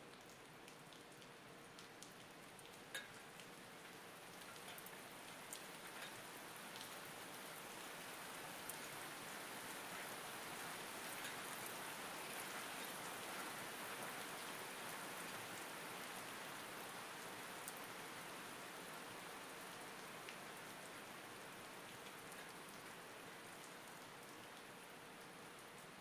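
Steady rain falling, with scattered single drops striking close by as separate ticks. It swells a little toward the middle and eases again near the end.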